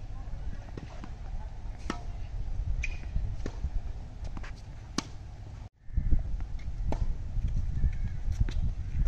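Tennis ball being struck by a racket and bouncing on a hard court in a rally: a sharp pop every second or two over a steady low rumble. The sound cuts out for a moment a little past halfway.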